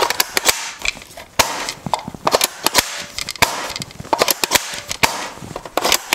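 The bolt of a spring-powered A&K SVD airsoft rifle being cocked again and again: a series of sharp mechanical clacks from the short-throw cocking handle being pulled back and let go.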